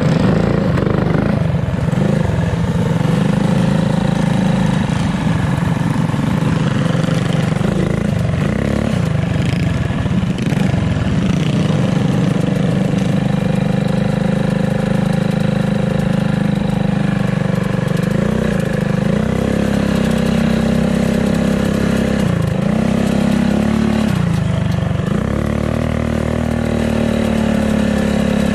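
Mini bike's small single-cylinder engine running hard under throttle, heard from on the bike as it is ridden. The engine note holds near steady, with a few brief dips as the throttle is eased off and opened again.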